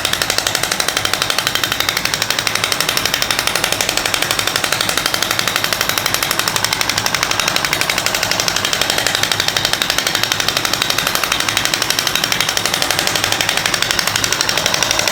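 Radial shockwave therapy handpiece firing against the wrist: a steady, fast rattle of evenly spaced clicks.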